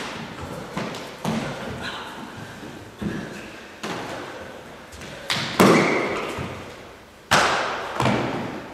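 Feet stamping and bodies colliding as two people spar in a martial-arts drill: a series of sudden thuds, about nine in all, echoing in a large bare hall, the loudest two about halfway and near the end.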